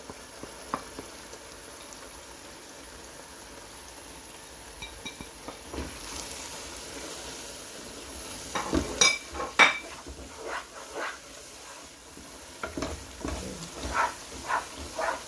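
A spice masala sizzling as it fries in a pan and is stirred, with a few sharp scrapes and clinks of the spoon against the pan about nine seconds in and again near the end.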